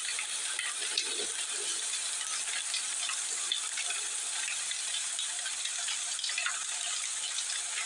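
Heavy rain falling steadily, a constant hiss with small scattered ticks.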